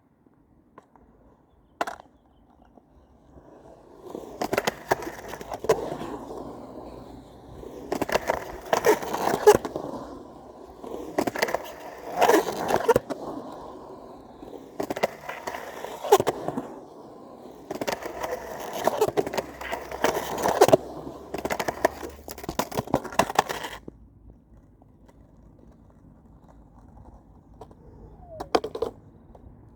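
Skateboard wheels rolling over rough ground, swelling into about five louder passes with sharp clacks of the board among them, then dying away.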